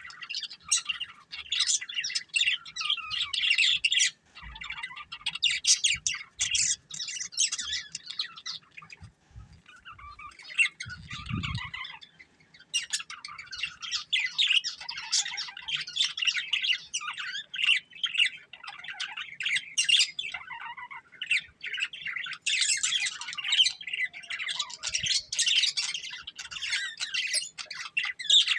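Budgerigars chirping almost without a break, with a short lull about ten seconds in.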